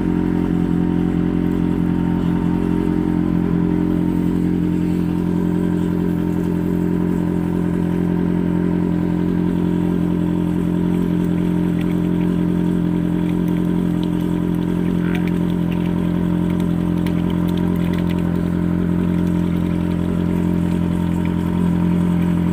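Sewer suction machine running steadily, its engine and vacuum pump giving a constant drone with several fixed low tones while the hose draws sludge from a sewer pit.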